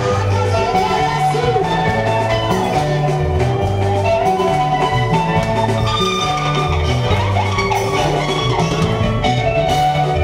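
Live gospel worship music: a band of electric keyboards and electric guitar playing over a steady bass line and beat, with a woman singing into a handheld microphone at times.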